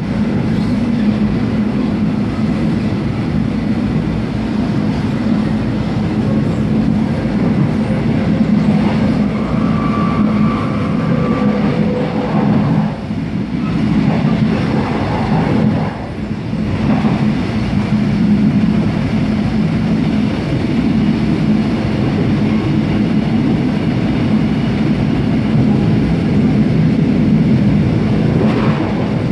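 Mugunghwa-ho passenger train running at speed, heard from inside the carriage: a steady rumble of wheels on the rails. A brief faint whine comes in about ten seconds in.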